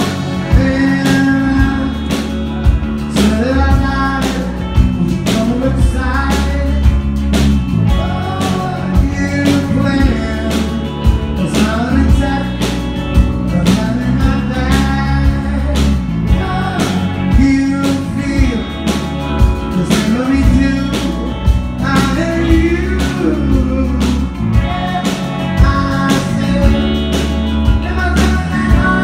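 Live rock band playing loud and steady: a male lead vocal singing over electric guitars, bass and a drum kit keeping a steady beat, heard through the club's PA.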